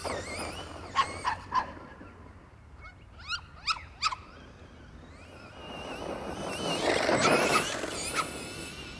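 A dog barking in short bursts, a few about a second in and more about three to four seconds in. Then the electric RC truck runs closer, its motor whine and tyres in the grass swelling to a peak about seven seconds in and fading.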